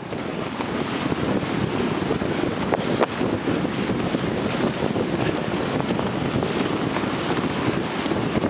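Wind buffeting the microphone of a camera carried at a jog: a steady, rough rumbling noise with a few faint clicks through it.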